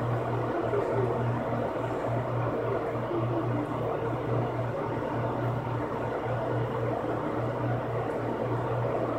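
Box fan running: a steady whirring rush of air with a low hum that pulses in an even rhythm.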